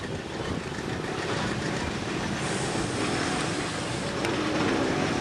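Shay geared steam locomotive running along the track, a steady chuffing rumble that grows slowly louder as it approaches.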